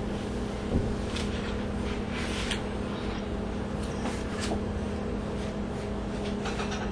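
Steady low hum of room noise, with a few faint, soft rustles as paperback pages are handled.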